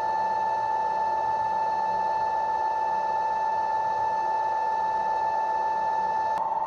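Hwacheon Hi-TECH 650AL CNC lathe rough-boring the inside of a workpiece with a long boring bar: a steady high whine over a hiss of cutting. Near the end the sound changes abruptly as the upper hiss and tone drop out.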